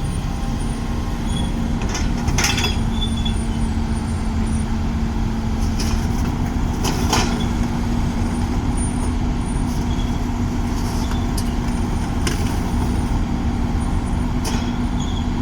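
Komatsu PC210LC-10 hydraulic excavator's diesel engine running steadily with a held low hum, and a few sharp knocks about two, seven, twelve and fourteen seconds in.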